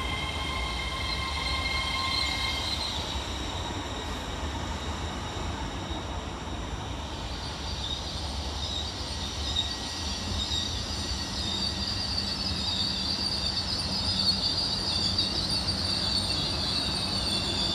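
Class 802 multiple unit moving in the platform with a steady rumble. A set of steady whining tones fades out about three seconds in, and a high-pitched squeal builds from about seven seconds in.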